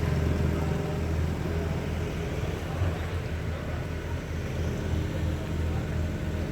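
Steady low engine rumble with general street noise, with no single event standing out.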